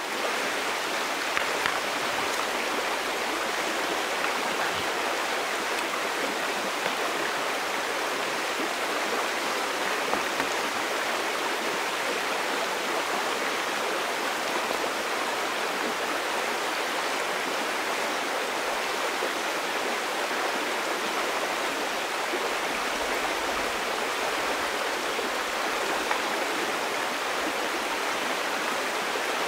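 River water running over stones, a steady, even rush.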